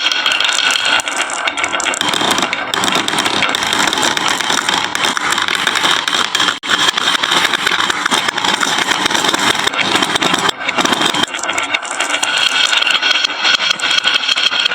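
Many marbles rolling and clattering down wooden HABA marble run slopes: a dense, continuous rattle of small clicks, with a brief gap about six and a half seconds in.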